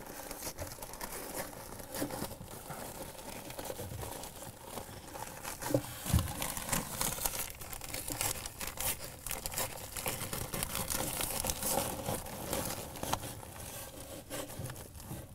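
Continuous crinkling and rustling, as of material being handled, with a couple of light knocks about six seconds in.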